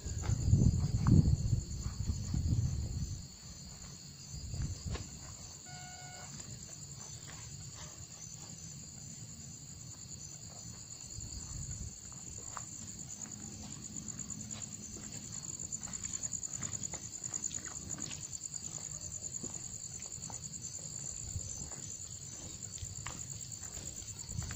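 Crickets chirping in a steady, high-pitched, finely pulsing trill. There is louder low rumbling in the first three seconds, and a short tone about six seconds in.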